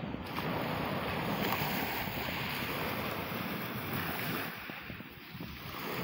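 Sea surf washing onto a shingle beach, with wind on the microphone. The rush eases about two-thirds of the way through and swells again near the end.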